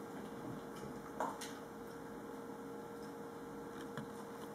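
Cavalier King Charles spaniel's claws clicking on a hardwood floor as it moves about: a few scattered faint taps, about a second in and again near the end, over a faint steady hum.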